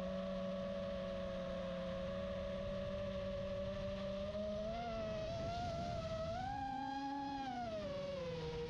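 FPV quadcopter's brushless motors and propellers whining in flight. The pitch holds steady, rises about two-thirds of the way in, then drops back near the end.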